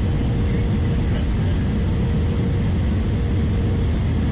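Steady low rumble of an Airbus A320's cabin noise heard from inside the cabin, with a faint steady whine running under it.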